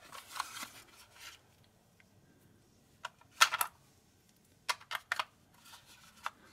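Rustling of paper packaging, then a few short sharp plastic clicks and clacks as AA batteries are fitted into the open battery compartment of a Retekess V117 pocket shortwave radio. The loudest click comes about three and a half seconds in, with a quicker group of clicks about a second later.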